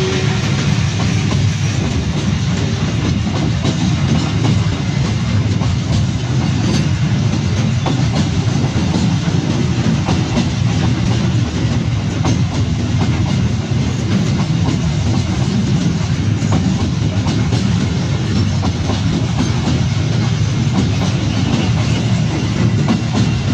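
Loaded flat wagons of a cement freight train rolling past close by: a steady, loud rumble of steel wheels on the rails, with clickety-clack from the wheels over the rail joints.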